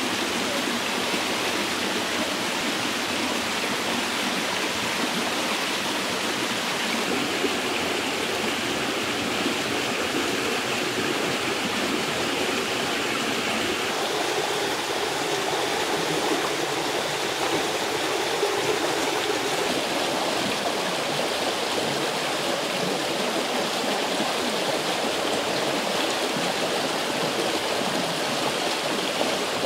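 A rocky stream rushing and splashing over boulders, a steady wash of flowing water whose tone shifts slightly about halfway through.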